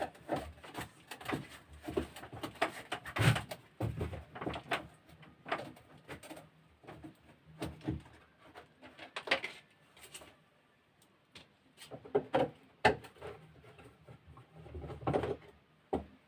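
Irregular clicks, taps and knocks of hands and tools handling a plastic battery sprayer as it is taken apart.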